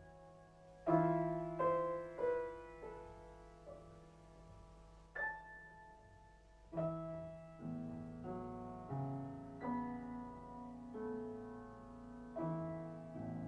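Solo piano music at a slow pace: chords and single notes struck and left to ring out, the loudest chord about a second in, followed by a gentler run of notes.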